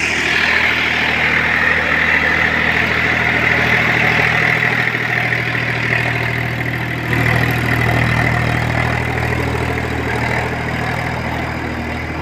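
Massey Ferguson 7250 DI tractor's three-cylinder diesel engine running steadily under load while driving a 7-foot rotavator through the soil, with the rotavator churning the earth. The tractor pulls the rotavator without strain.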